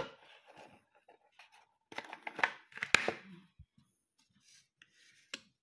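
Irregular small clicks, taps and rustles of hands working incense sticks and a lighter at a wooden incense holder, with one sharp click about three seconds in.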